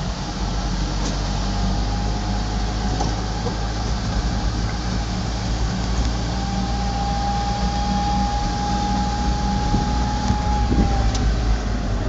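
Cabin noise of a Smart car under way: a steady low engine and road rumble. A thin, steady whine stands out from about halfway through and fades near the end.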